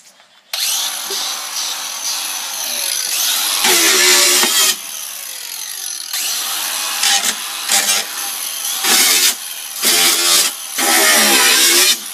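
Cordless angle grinder starting up about half a second in and running at speed, with several louder grinding stretches, the longest about four seconds in and near the end, as the disc is pressed into the material being cut.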